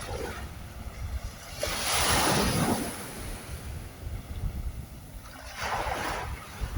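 Ocean waves breaking and washing up the shore: one large wave hisses in about two seconds in and a smaller one near the end, over a low rumble of wind on the microphone.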